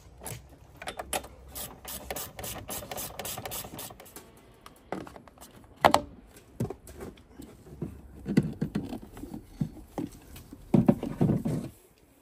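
Clicks, rattles and knocks of parts being handled on a new ATV: a rapid run of clicks about a second in, a sharp knock near the middle and a short rattling cluster near the end.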